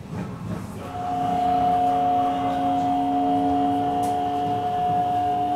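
Nishitetsu 6050-series train's GTO VVVF inverter and traction motors giving a steady whine of several tones over the running rumble as the train brakes. The whine comes in about a second in.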